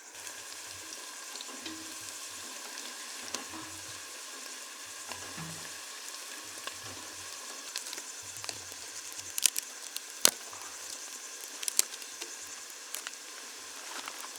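Spiced masala frying and sizzling in a pan, with a steady hiss and occasional stirring. Several sharp clicks come in the second half.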